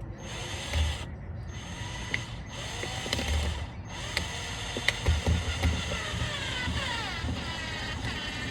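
Power drill driving screws: three short bursts, then a longer run whose whine sinks in pitch near the end, with a few knocks.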